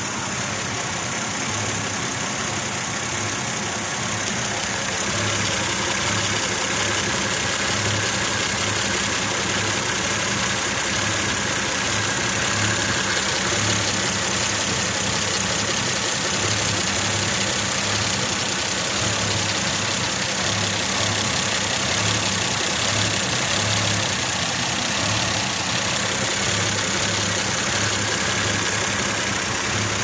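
Mazda 626 V6 DOHC 24-valve engine idling roughly, heard from over the open engine bay, with an uneven low pulsing.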